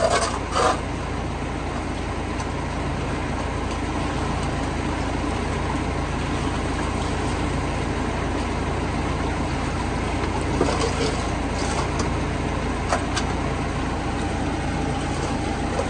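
A parked vacuum truck's diesel engine runs steadily, an even drone with no change in speed. Short knocks and scrapes come about half a second in and three or four times later on, when the worker handles the metal bucket in the sludge.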